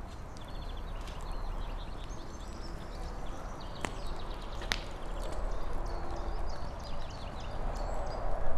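Outdoor ambience: a steady low rumble with scattered faint high chirps, and two sharp clicks about four seconds in.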